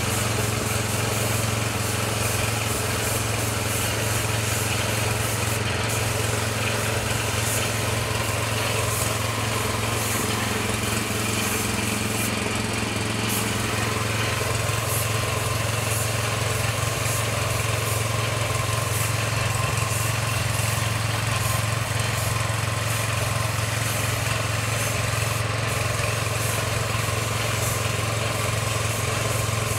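Air compressor running steadily with a low hum, under the hiss of a gravity-feed spray gun spraying clear coat in short on-off passes.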